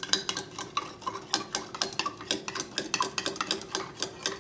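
A stirring rod clinking rapidly against the inside of a small glass beaker, about five light taps a second, as sodium sulfate is stirred in to dissolve in the copper solution.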